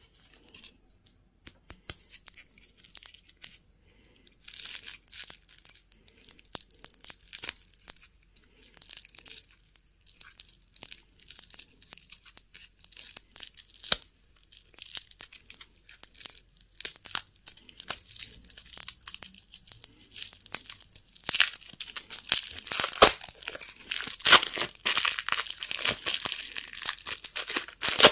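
Candy wrappers crinkling and tearing as sweets are unwrapped, with many small crackles and clicks; the handling gets busier and louder over the last several seconds.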